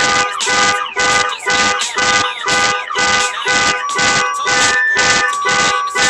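Background hip-hop music with a fast pulsing beat and siren-like synth tones that glide up and down, then hold steady notes.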